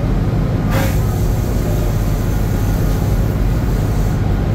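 Steady low drone of a fishing processor vessel's engines and deck machinery. A short sharp sound falling in pitch comes about a second in, followed by a faint hiss that stops near the end.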